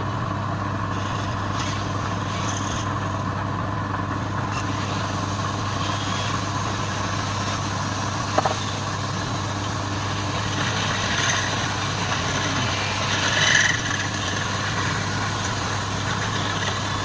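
Wood lathe running with a steady motor hum. There is a single click about eight seconds in, and the sound swells briefly twice in the last third.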